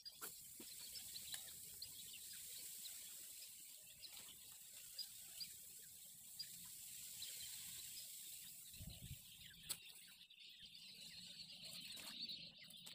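Faint outdoor ambience: a steady high hiss with small scattered bird chirps, and a soft low bump about nine seconds in.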